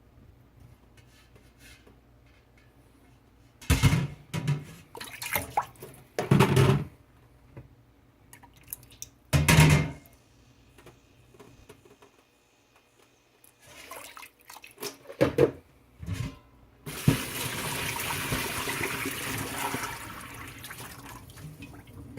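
Dishes and metal knocking and clattering at a kitchen sink in three loud clusters, with a few lighter knocks later. Then a tap runs for about three seconds and fades. A faint steady low hum sits underneath throughout.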